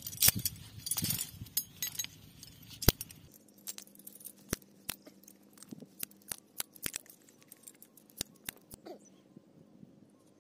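Iron chain links clinking and rattling as a hand handles them, with a dense run of loud clinks in the first three seconds, then scattered single clicks until about nine seconds in.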